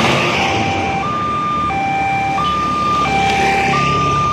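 Railway level-crossing electronic warning alarm sounding a steady two-tone high-low signal, each tone about two-thirds of a second long, with the crossing closed for an approaching train. Motor vehicle traffic runs underneath and swells twice as vehicles pass.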